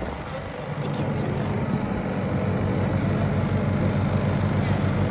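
Honda portable inverter generators running on natural gas from the house line, with a steady engine hum that grows somewhat louder during the first second or two.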